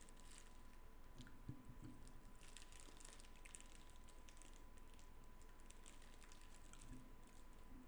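Near silence: faint scattered clicks over a faint steady tone.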